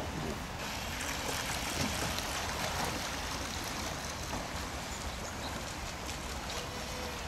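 Steady rushing of a shallow river running over gravel, with a small brushless RC boat's motor faintly whining and changing pitch in the first couple of seconds.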